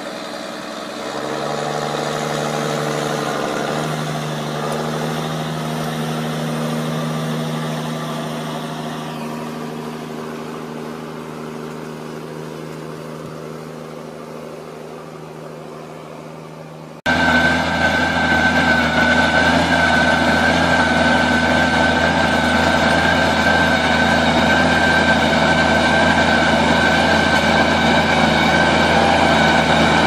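Heavy farm machinery engines running. The first engine hums steadily, swells about a second in, then slowly fades. About 17 s in it cuts abruptly to a louder machine with a steady high whine over a deep drone.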